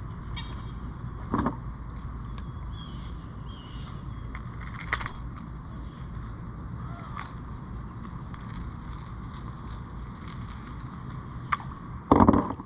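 Light clicks and rattles of fishing tackle being handled in a kayak while a small fish is landed, over a steady low background noise. A knock comes about a second and a half in, and a louder, heavier thump near the end.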